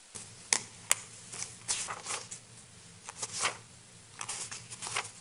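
Paper rustling as pages of a document are leafed through close to a microphone: irregular short rustles, with two sharp clicks in the first second, over a low steady electrical hum.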